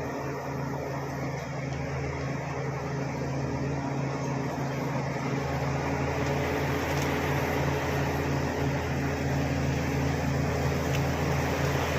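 Bulldozer's diesel engine running steadily with a constant low drone, growing gradually louder.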